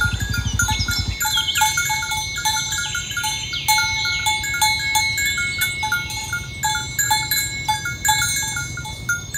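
A cow's low moo trailing off about a second in. Under it, a steady run of tinkling, bell-like notes repeats a few times a second throughout.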